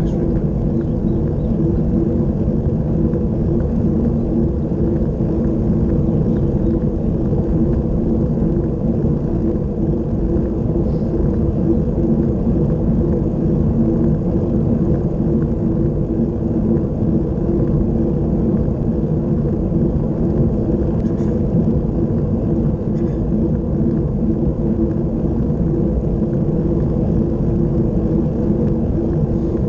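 Loud, steady wind noise and tyre noise from a road bicycle descending at speed, picked up by a camera mounted on the bike.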